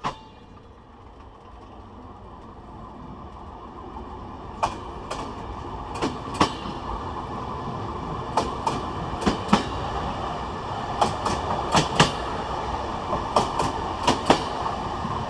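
Passenger coach bogie wheels rolling over jointed rail as the train pulls away and gathers speed: a steadily rising rumble, then clickety-clack from about a third of the way in, sharp clicks in pairs as the bogie's two axles cross each rail joint, the pairs coming closer together as the train speeds up. A single sharp knock right at the start.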